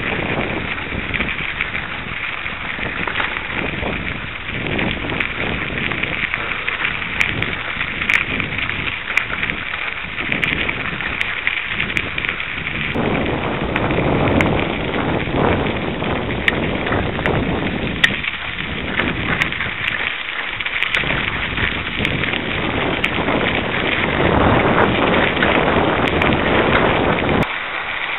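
Bicycle tyres crackling over a dirt and gravel trail, with a steady rush of wind on the microphone while riding.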